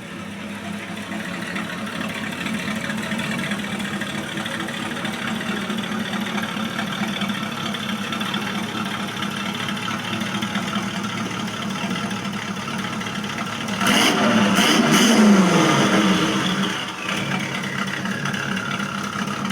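Rat rod's engine idling steadily. Late on it is blipped twice in quick succession, the pitch falling back to idle after each rev.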